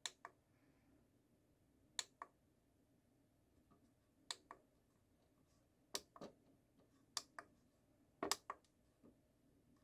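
Button clicks on an iCharger 1010B+ battery charger being set up: six pairs of short sharp clicks, a pair every second or two, in near silence.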